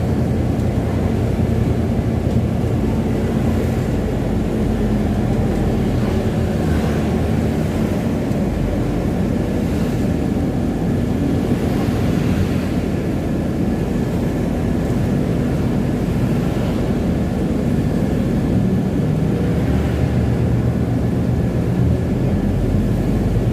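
Steady low rumble of a large vehicle engine, most likely a city bus, running without change in pitch or level.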